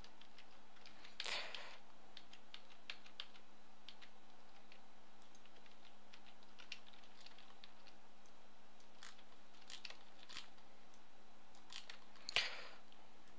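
Scattered keystrokes and clicks on a computer keyboard and mouse, with louder clatters about a second in and near the end, over a steady faint hum.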